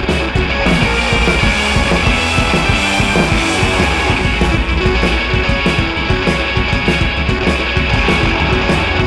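Rock background music with electric guitar and a driving drum beat.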